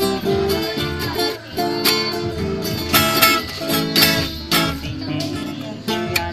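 Music featuring plucked guitar, a quick run of notes with sharp attacks.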